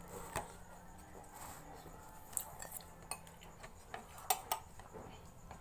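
Metal spoon clinking against a metal plate while serving cooked rice: several short, sharp clinks, the loudest a pair about four and a half seconds in.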